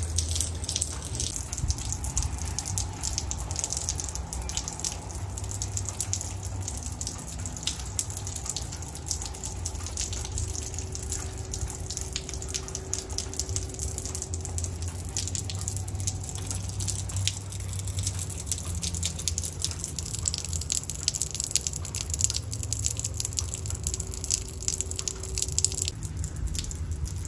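Light rain falling, a dense run of small drops and drips ticking, over a low steady rumble.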